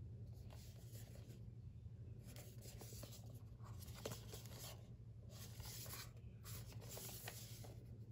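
Hands handling a Blu-ray case in a cardboard slipcover: several short bouts of faint rubbing and sliding of cardboard against skin, with a light tap about four seconds in. A low steady hum runs underneath.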